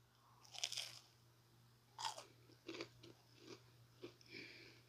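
Biting into and chewing an air-fried chicken nugget with a crispy coating: a crunch about half a second in, a louder crunch about two seconds in, then softer crunchy chews at irregular intervals.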